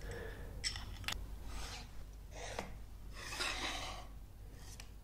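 Faint handling noise of 3D-printed plastic tripod parts: a few light clicks and soft rubbing swishes as the legs and heads are picked up and moved.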